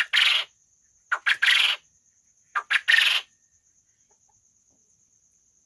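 Puyuh ropel quail calling three times, about a second and a half apart. Each call is a short note followed by a longer, harsh note. A thin, steady high whine runs underneath.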